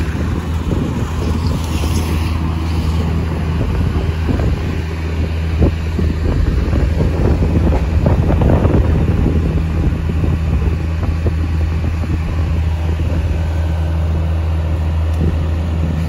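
An engine idling steadily at the sawmill, with wind buffeting the microphone mostly in the first half.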